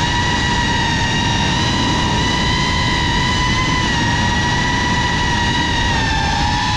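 GEPRC CineLog35 FPV cinewhoop drone in flight, its motors and ducted propellers giving a steady high whine over a rush of air. The pitch wavers a little, sagging slightly near the end before climbing again.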